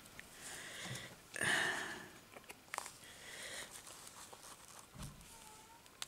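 Faint handling sounds of small craft materials: a soft rustle about a second and a half in and a few light clicks and taps as a button and a glue bottle are handled.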